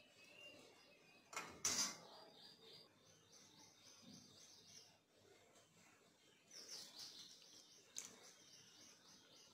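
Near-quiet room tone with faint high bird chirping in the background, broken by a few soft knocks and clinks: the loudest comes about one and a half seconds in, with more near the end.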